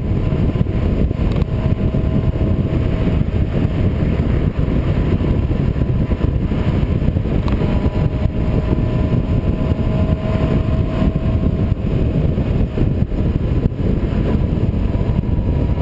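Yamaha R6 inline-four engine running at a steady cruising speed, under a heavy, constant rush of wind on the microphone.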